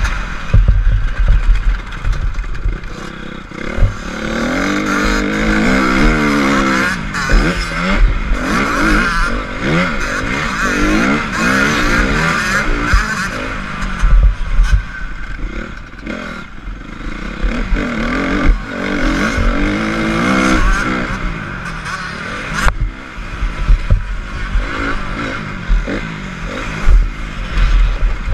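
Honda CRF250 four-stroke single-cylinder motocross engine revving up and falling back again and again as the dirt bike is ridden hard round a track, with wind rumble on the microphone and occasional knocks from the bumpy ground.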